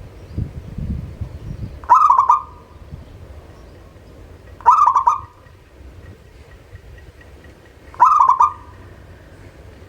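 Local perkutut (zebra dove) calling three times, about three seconds apart. Each call is a short, fast stuttering coo of quick pulses. Low rumbling noise is also heard in the first two seconds.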